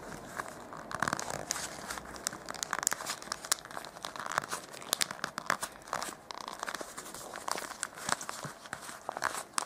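Glossy origami paper (papel charol) crinkling and crackling as fingers bend, tuck and press the last module into a modular paper cube, with many small irregular crackles.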